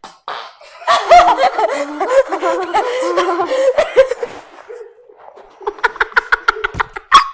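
Children laughing and giggling in a string of short bursts. Near the end comes a quick, even run of short pulses at a steady pitch.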